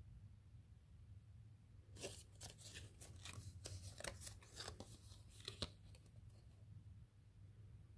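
A folded paper instruction leaflet being unfolded and handled, crinkling and crackling in a quick run of small clicks from about two seconds in until about six seconds, over a steady low hum.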